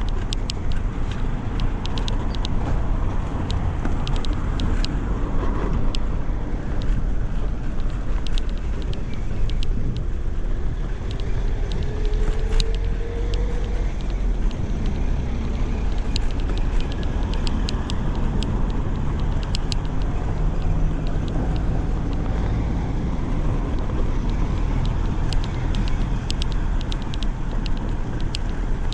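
Bicycle being ridden, heard through a handlebar- or body-mounted 360 camera. Steady low wind and road rumble runs throughout, with frequent light clicks and rattles from the bike shaking over the road: vibration noise that the rider puts down to tyres pumped too hard.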